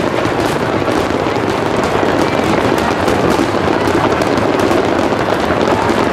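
A fireworks barrage, with many aerial shells bursting in rapid succession. The bursts merge into a loud, continuous din, thick with sharp crackles.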